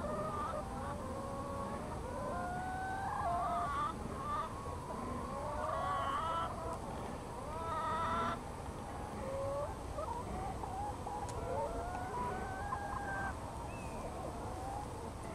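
A flock of free-range brown hens clucking and calling, several voices overlapping in wavering, rising phrases, busiest in the first half and sparser after.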